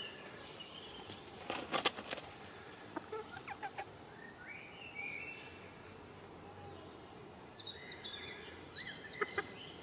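Bantam chickens calling quietly, with short chirps and clucks now and then, over a soft outdoor hush. A quick run of sharp clicks comes near two seconds in.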